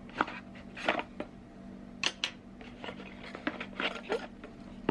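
A parcel being handled and opened by hand: a series of short, sharp crinkles, snaps and rustles of packaging at irregular intervals, over a faint steady hum.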